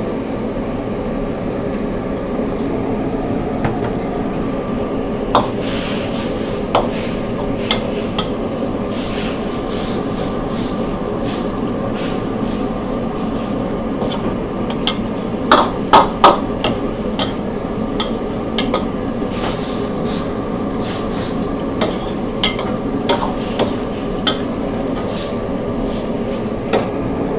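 Pad thai noodles frying with a steady sizzle in a steel wok while a steel ladle stirs and scrapes them. The ladle clinks and knocks against the wok over and over from about five seconds in, with the loudest knocks near the middle.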